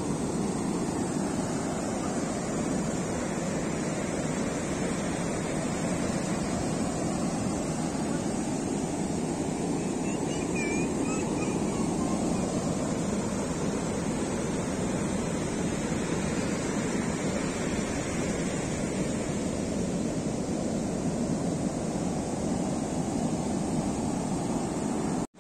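Atlantic surf breaking and washing up a sandy beach: a steady, continuous rush of waves.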